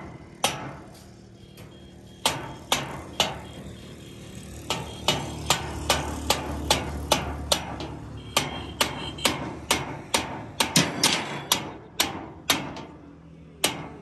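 A hammer striking a steel pipe repeatedly, about two blows a second in runs with short pauses, each blow followed by a brief metallic ring, as the bent pipe is knocked into place against a steel stop on the bending table.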